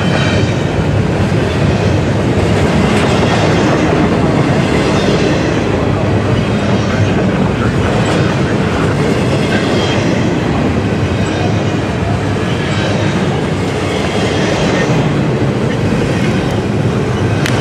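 Double-stack container well cars of a freight train rolling past at speed: a steady loud rumble of steel wheels on rail, with a clickety-clack that comes again every couple of seconds as each set of wheels goes by.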